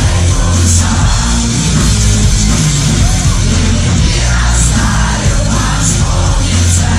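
Live rock band playing loud, with vocals over heavy bass.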